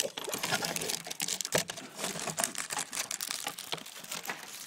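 A beagle noses around a wooden floor, giving a run of irregular light clicks and crackles.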